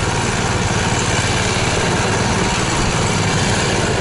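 Small engine of a tracked snow vehicle running steadily while driving along a snowy track.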